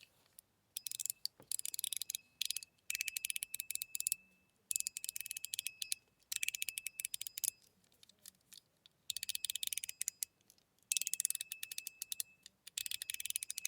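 Titanium mechanical fidget slider worked back and forth in about seven short runs, each a rapid string of clicks with a scratch of titanium across its smooth plate and a bright ringing ping.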